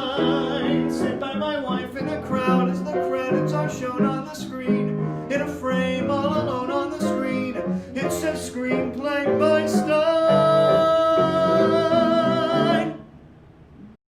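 A song with guitar accompaniment and singing, ending on a long held note that cuts off near the end.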